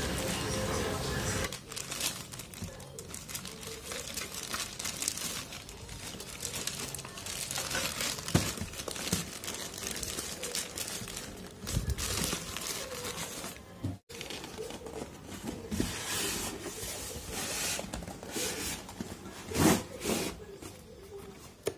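Clear plastic bag crinkling and rustling irregularly as a drone remote controller wrapped in it is handled and packed into a styrofoam box. There is one louder bump near the end.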